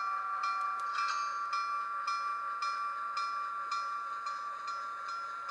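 Sound-equipped HO-scale NW2 switcher's decoder playing a diesel locomotive bell through the model's small speaker, ringing steadily about twice a second over a steady tone.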